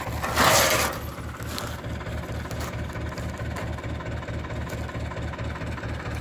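Diesel engine of an Ostrówek backhoe loader idling with a steady, even low throb. A brief louder rush of noise comes about half a second in.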